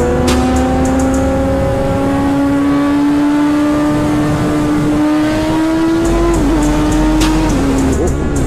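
Kawasaki Z1000's inline-four engine held at high revs under hard acceleration, its pitch climbing slowly. About six seconds in the pitch drops and wavers as the throttle eases, and it falls again near the end.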